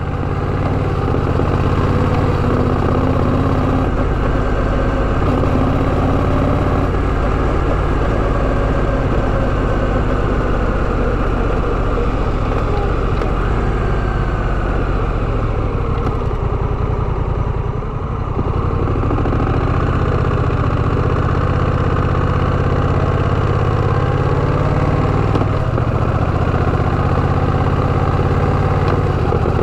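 Honda Rebel 1100's parallel-twin motorcycle engine running steadily at a low, even pace, with a brief drop in level a little past the middle.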